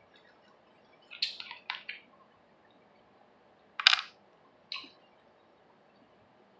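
Plastic soda bottle being handled and its screw cap turned: a few quick crackles about a second in, then a sharp click near the middle and a shorter crackle about a second later.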